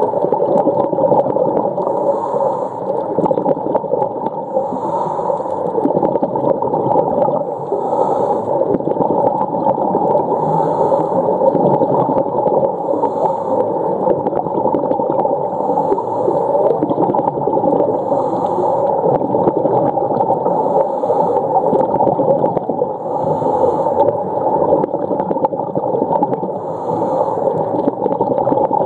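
Underwater sound of humpback whales calling through a steady wash of water noise, with a soft hiss recurring every two to three seconds.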